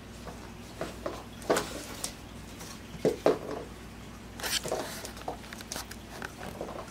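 Pit bull puppy's paws and claws tapping and clicking irregularly on a hardwood floor, with a few louder knocks about three seconds in and again a second or so later.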